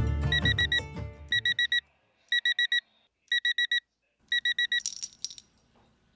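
Music fades out, then a digital alarm clock beeps in quick bursts of four, about one burst a second. A few sharp clicks come near the end.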